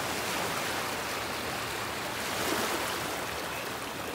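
Small waves washing and breaking on a stony beach: a steady rush of water, slightly louder about two and a half seconds in.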